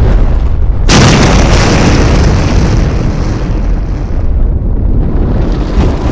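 Cinematic explosion sound effect: a deep rumble, then a loud blast about a second in that slowly dies away.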